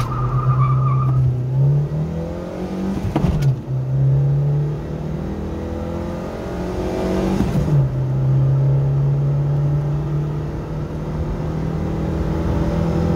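Škoda Favorit 135L's 1.3-litre carburettor four-cylinder engine accelerating flat out from a standstill, heard from inside the cabin. It revs up in first, drops in pitch at a gear change about three seconds in, and revs up again in second. A second upshift follows at about seven and a half seconds, then the note climbs slowly in third.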